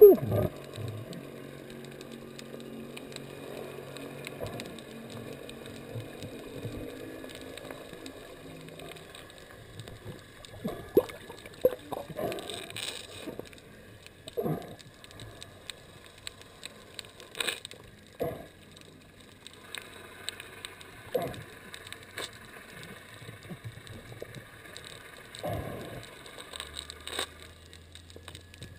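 Muffled underwater sound heard through a GoPro dive housing: water gurgles and a low steady hum, with a loud knock at the start and scattered dull knocks after.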